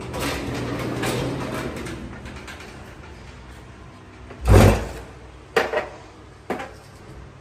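A door being pushed open, with a heavy thump about four and a half seconds in and a few lighter knocks just after.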